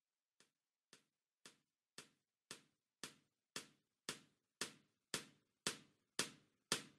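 A steady ticking beat in a music track's intro: one short percussive tick about twice a second, fading in from near silence and growing steadily louder.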